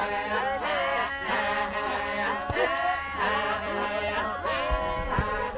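Maasai warriors chanting together: several men's voices in a rhythmic group chant with overlapping, bending lines.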